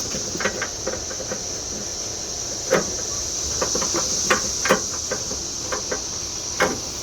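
Irregular plastic clicks and knocks from hands working the side marker bulb socket and its wire behind a pickup truck's headlight, against a steady high insect drone.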